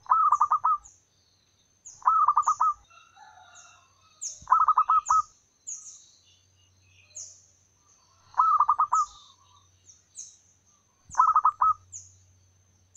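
Zebra dove cooing: five short bursts of rapid staccato notes, spaced a few seconds apart. A smaller bird's high, quick chirps repeat in the background.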